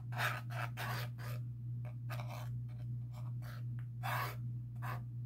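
Glue tube's nozzle dragged across a craft-foam heart while glue is spread: short dry scratching strokes, roughly two a second, over a steady low hum.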